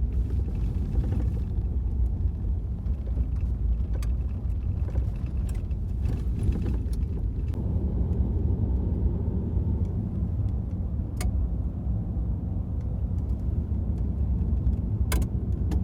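Car driving on a gravel back road, heard from inside the cabin: a steady low road and engine rumble, with a few sharp clicks.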